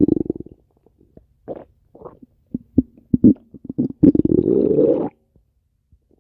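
Stomach growling: a quick run of gurgles at the start, scattered short gurgles, then one longer gurgling growl of about a second that cuts off suddenly near the end.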